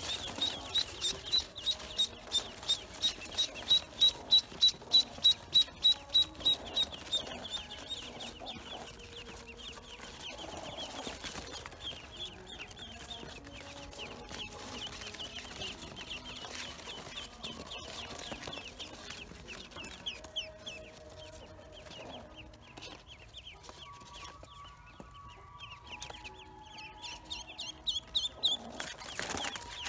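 Newly hatched Pekin and black ducklings peeping, high and shrill. A loud run of evenly repeated peeps in the first seven seconds gives way to many overlapping peeps from the whole brood.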